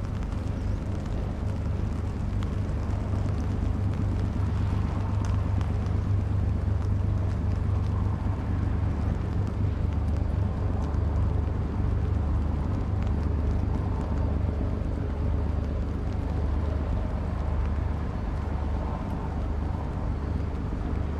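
Diesel engine of a river sand barge running steadily, a low drone.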